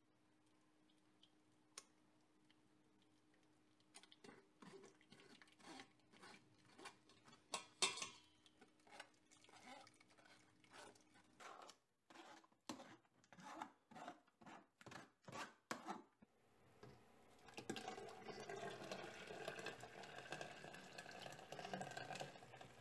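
A ladle scrapes and taps against a fine stainless-steel sieve in short irregular strokes as tomato purée is pressed through it. From about two-thirds in, there is a steadier rushing sound of thick tomato purée being poured into a pot.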